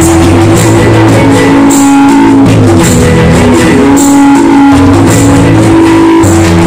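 Loud recorded dance music played over loudspeakers, with a bass line, held melody notes and a steady beat.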